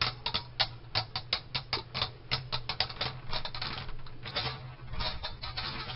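Two Beyblade Burst tops, Left Astros A5 and Ace Dragon, clashing in a plastic stadium: an irregular run of sharp clacks, several a second. About four seconds in the clacks turn to a denser scraping rattle as the two tops grind together and lose spin.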